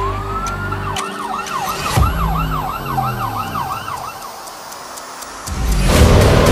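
Police car siren winding up, then switching to a fast yelp of about three cycles a second that fades out about four seconds in, over a low music drone with a couple of hits. The music swells loud again about five and a half seconds in.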